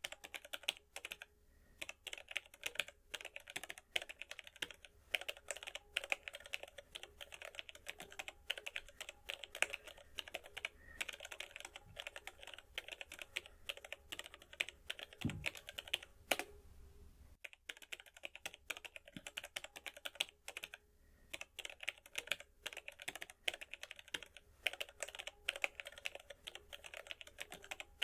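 Typing on a computer keyboard: quick, irregular keystrokes clicking almost without a break, with a few short pauses and one heavier thump about halfway through.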